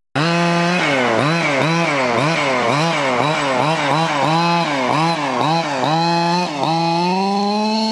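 Gasoline two-stroke engine of an HPI Baja 5SC radio-controlled truck, its revs rising and falling about three times a second as the throttle is worked. Near the end the revs climb smoothly and hold at a higher, steady pitch.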